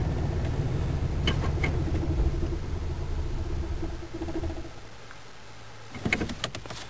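1985 Chevrolet Caprice small-block V8 idling, heard from inside the cabin, with a couple of light clicks about a second in. About four and a half seconds in, the engine sound drops to a much quieter, steadier level. The owner calls the idle rough and puts it down to a timing chain that has skipped a notch.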